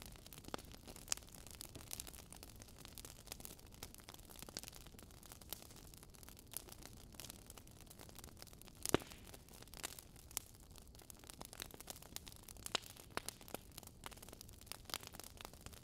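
Faint irregular crackling, scattered sharp clicks over a low hiss, with one louder click about nine seconds in.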